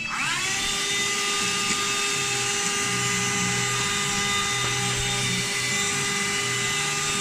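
Small handheld cordless vacuum cleaner switched on: its motor spins up within half a second to a steady high whine over a rush of air.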